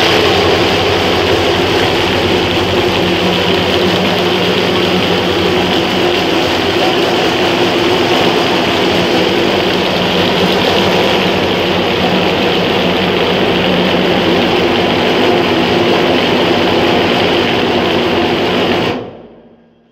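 Şahveli 3B-45 tilting hummus machine running loud and steady, its motor and blades grinding boiled chickpeas into hummus in the closed bowl, then running down and stopping near the end at the close of a 20-second cycle.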